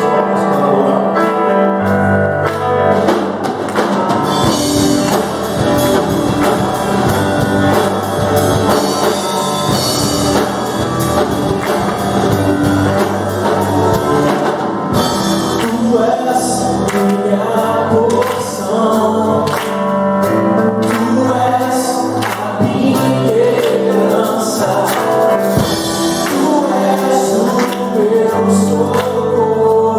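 Live church worship band of keyboard, electric guitar, drum kit and bass guitar playing a congregational gospel song, with singing over it.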